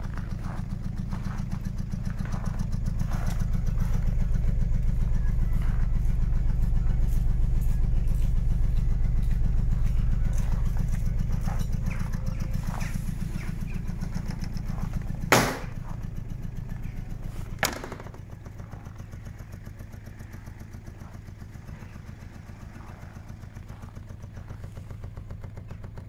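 Aixam Mega microcar's small diesel engine idling with a steady, rhythmic chug. About fifteen seconds in come two sharp bangs about two seconds apart, the rear cargo doors being slammed shut, and after them the engine sounds quieter.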